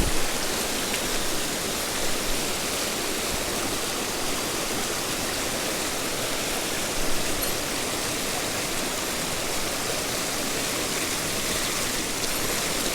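Mountain stream's running water, a steady even rush.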